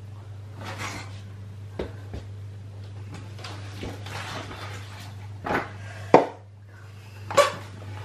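Plastic cup and wooden stick scraping and knocking in a plastic bucket as powdered tile adhesive and water are mixed, with a sharp knock about six seconds in, over a steady low hum.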